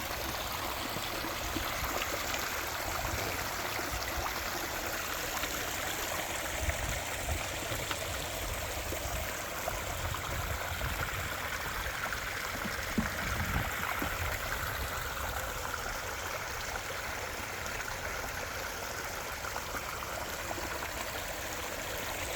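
Water flowing steadily over the short rock waterfall drops of a small backyard stream, an even splashing and trickling.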